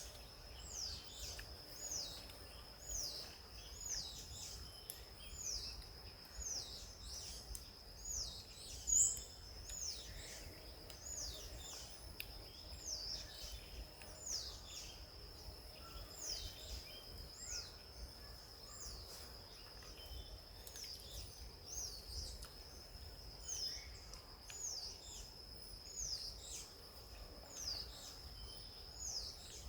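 Forest birdsong: a high note slurring downward, repeated about once a second, over a continuous high-pitched steady whine. There is one brief, louder chirp about nine seconds in.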